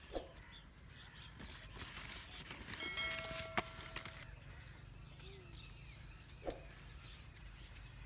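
Faint outdoor ambience with birds calling: two short falling calls, one near the start and one near the end. In the middle there is a patch of rustling and clicking and a steady tone that holds for about a second and a half.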